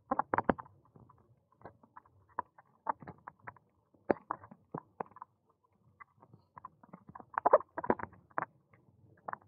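A bicycle rattling and clicking as it rides over a tarmac path: irregular knocks at uneven gaps, with louder clusters right at the start and again about two-thirds of the way through.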